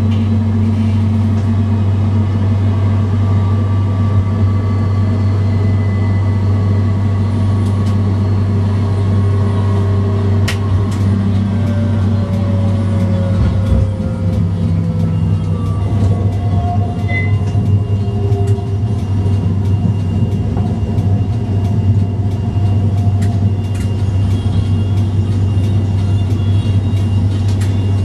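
Dresden tram running, heard from the driver's cab: a steady low rumble with a motor whine whose tones glide slowly down and up in pitch as speed changes, and occasional sharp clicks from the wheels over the track.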